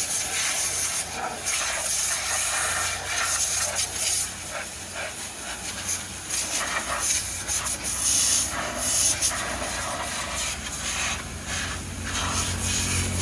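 Water spray hissing against a JCB 3DX backhoe loader as it is washed; the hiss swells and fades as the jet moves over the machine.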